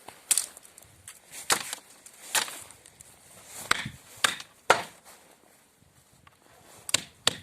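Wood being chopped or hacked apart for firewood: about eight sharp blows at irregular intervals, some in quick pairs.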